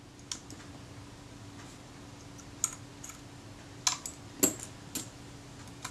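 Light clicks and taps of small metal parts inside a Kodak Retina Reflex IV's top housing being handled as the meter wheel is lifted and the film-advance cocking rack taken out: about six short, sharp ticks spread unevenly over a few seconds, over a faint steady hum.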